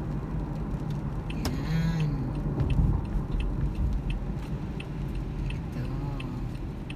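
Steady car road and engine noise heard inside the cabin while driving. From about two seconds in, a turn signal clicks evenly, about three clicks a second, as the car approaches a turn.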